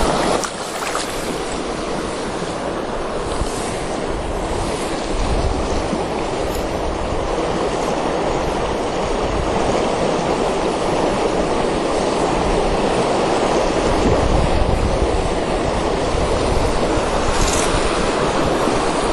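Shallow mountain stream running over a rocky riffle: a steady wash of moving water.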